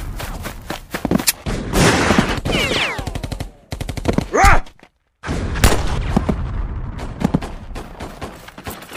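Battle gunfire: rapid rifle and machine-gun shots in dense volleys, broken by a brief silence about five seconds in.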